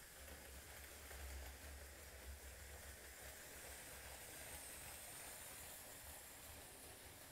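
Faint running of a Lego train's motor and wheels on plastic Lego track: a low hum under a steady hiss, with a faint high whine about four to five seconds in.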